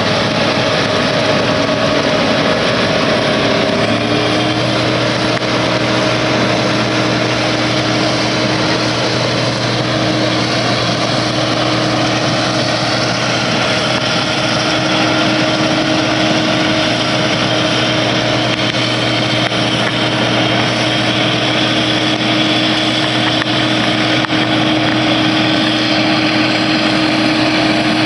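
Engine running steadily, its pitch stepping up slightly about four seconds in and then holding.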